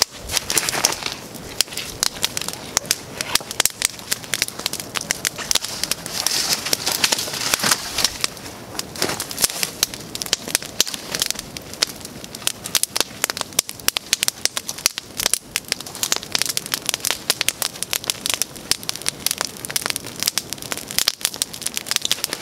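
Wood campfire crackling, a dense, irregular run of sharp pops and snaps.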